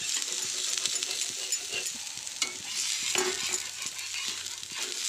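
Chakuli pitha (rice-batter pancake) sizzling on a hot pan, with a spatula scraping and clicking against the pan as the pancake is loosened and turned.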